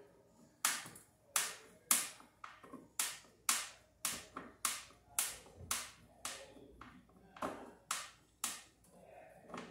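Hand tool working at a metal ceiling junction box, giving a steady series of sharp taps about two a second, each dying away quickly.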